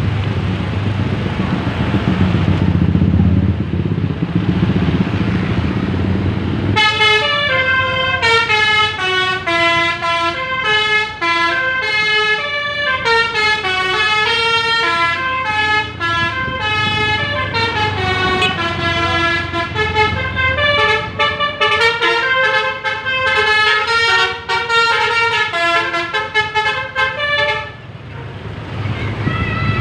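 A bus engine runs for about seven seconds. Then the bus's basuri telolet horn, a manually keyed set of air-horn trumpets, plays a quick melody of short stepped notes for about twenty seconds and stops shortly before the end.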